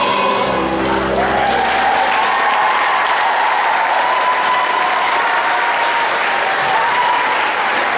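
Audience applauding. Music plays underneath and ends in the first two seconds.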